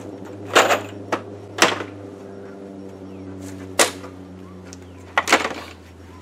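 Sharp wooden knocks and clunks, five in all, as 2x12 lumber blocks and a wooden rail frame are shifted and set in place. Under them runs a steady low mechanical hum that fades out near the end.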